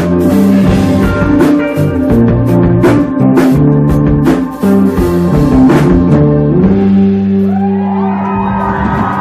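Live rock band: electric guitar and drum kit playing loud. About two-thirds of the way through the drumming stops and a held guitar chord rings on, with shouts rising over it near the end.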